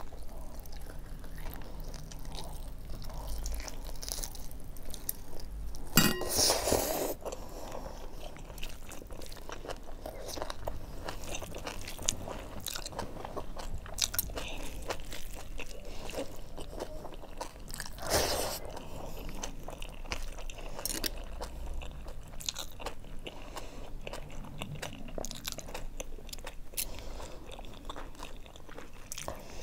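Close-miked eating of buffalo meat curry and rice by hand: wet chewing, biting and crunching with many small clicks, and louder bursts about six seconds in and again around eighteen seconds.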